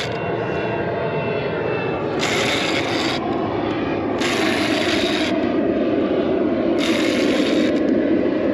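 Faulty fishing reel grinding in three bursts of about a second each as the line is cranked in against a hooked fish, over a steady low drone.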